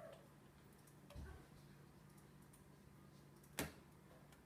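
Near silence with a faint steady hum, a soft low thump about a second in, and a single sharp click or tap near the end.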